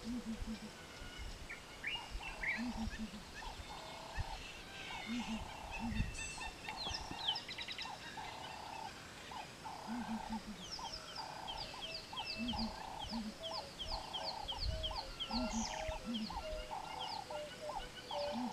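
Several birds calling in the bush: a low double hoot repeated every two to three seconds, a mid-pitched call repeated steadily more than once a second, and quick high chirps joining about halfway through.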